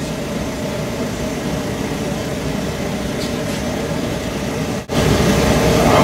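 Gun-type oil burner firing: the steady noise of its blower motor and the oil flame, with a steady hum. The combustion air is set very low, giving a smoky, incomplete burn. About five seconds in, the sound breaks off for an instant and comes back louder.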